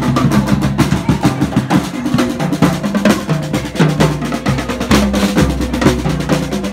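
Marching drumline playing: rapid snare and tenor drum strokes over bass drums sounding low notes that step from one pitch to another.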